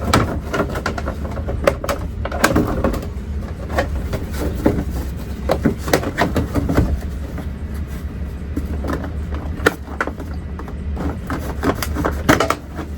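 Irregular clicks and knocks of hands and tools working the plastic trim and clips of a truck's door panel, over a steady low hum.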